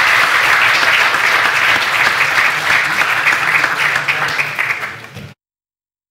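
Audience applauding in a lecture theatre, a dense steady clapping that tails off and then cuts off abruptly about five seconds in.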